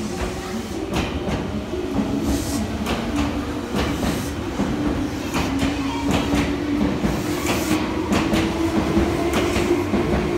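Meitetsu 3500 and 3100 series electric train pulling out and gathering speed. Its wheels clack over the rail joints, and a motor whine rises slowly in pitch.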